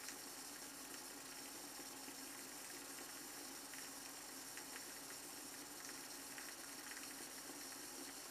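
Quiet steady hiss, with a few faint short scrapes of a shavette's half blade cutting through lathered stubble on the cheek.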